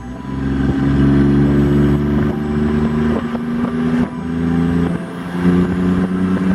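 Chevy S10 pickup's engine running at raised revs, held fairly steady with a few small shifts in pitch. It runs without the misfire that the owner traced to a faulty coolant temperature sensor.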